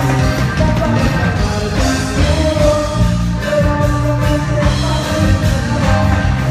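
A band playing a song with a steady beat and a bass line under sustained melody notes, with some singing.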